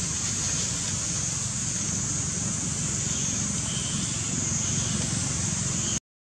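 Steady outdoor background noise: a low rumble under a constant high hiss, with no distinct events. It cuts to silence just before the end.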